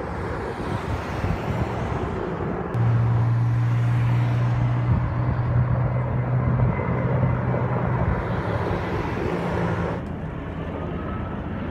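Air tanker aircraft's engines droning low and steady as it flies over during a fire-retardant drop, over a constant outdoor rush. The drone starts suddenly about three seconds in and gives way to a quieter rush near the end.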